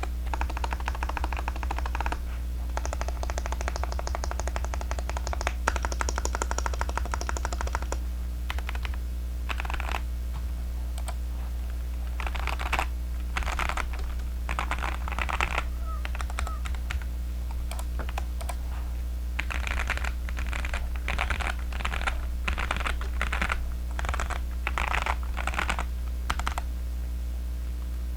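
Zoom75 mechanical keyboard with Kailh Heavy Burnt Orange tactile switches being typed on: a fast, dense run of keystrokes for the first eight seconds or so, then short bursts of typing with brief pauses between them, over a steady low hum.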